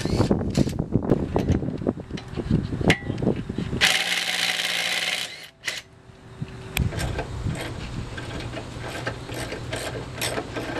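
DeWalt cordless drill with a socket spinning lug nuts off a car's front wheel. It runs in short spurts with metal clicks and clinks, and once for over a second without a break about four seconds in.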